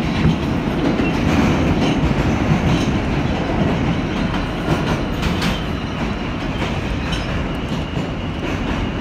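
2005 Alstom-built R160A subway car running through a tunnel: a steady, loud rumble of wheels on rail with a faint high whine. A few sharp clicks come from rail joints, and the rumble eases slightly in the second half.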